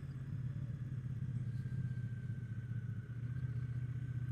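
Triumph Bonneville T120's parallel-twin engine running under way on the road, a steady pulsing note that dips and changes about three seconds in.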